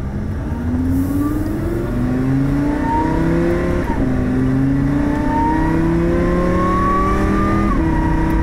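Supercharged Lamborghini Huracán V10 accelerating, heard from inside the cabin: the engine note climbs steadily and drops sharply at quick upshifts of the dual-clutch gearbox, about four seconds in and again near the end.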